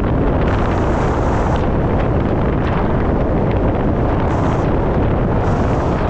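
Wind buffeting the microphone on a moving motorbike, a loud, steady rush of wind with road rumble underneath.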